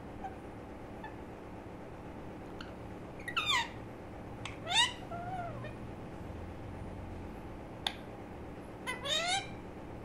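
Young rose-ringed (Indian ringneck) parakeet calling: short calls that slide in pitch, in three groups about three, five and nine seconds in. A steady low hum sits underneath.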